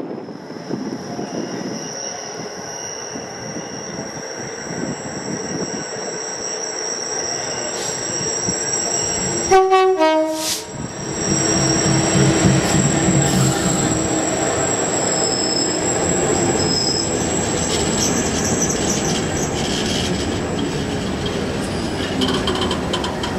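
A Class 66 diesel-electric locomotive approaches with a steady high ringing from the rails. About ten seconds in it sounds a short two-note horn blast that steps down in pitch, and its EMD two-stroke V12 engine passes close by. Container wagons then roll past with steady wheel and rail noise and a high squeal.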